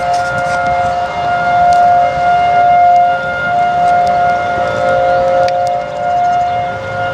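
Outdoor tornado warning sirens sounding a steady tone during a siren test. The tone holds two pitches together and swells and fades in volume about once a second.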